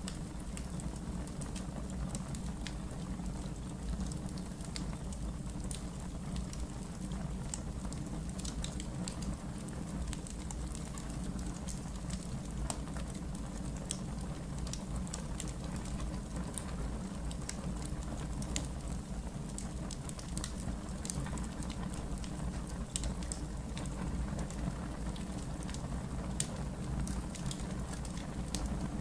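Wood logs burning in a fireplace: a steady low rumble of the flames with many small, sharp crackles and pops scattered irregularly throughout, one slightly louder pop about two-thirds of the way through.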